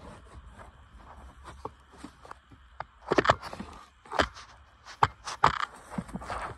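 Plastic center-console trim around a 2019 Honda Civic's shifter being pushed and pulled by hand to free its clips: irregular sharp plastic clicks and knocks with short scraping rustles, the loudest cluster about three seconds in.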